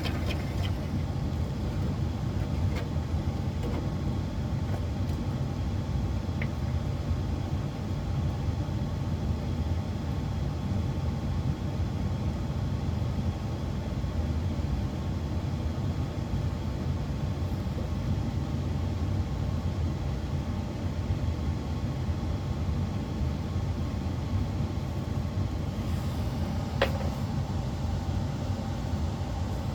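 Dual-stage high-efficiency furnace running with a steady low rumble and an occasional faint tick. Its induction motor's plastic fan is cracked.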